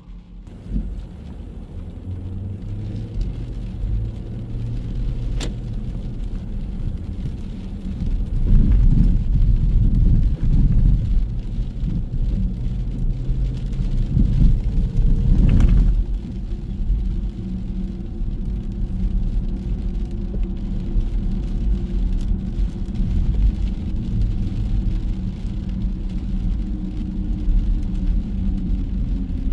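Motor traffic rumbling steadily, with a low engine hum. It grows louder in the middle for several seconds as heavier traffic passes close, then settles back to a steady rumble.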